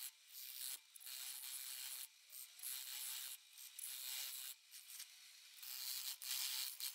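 Parting tool cutting a groove into a spinning wooden blank on a wood lathe: a faint, hissy scraping that comes and goes in short strokes of about a second each.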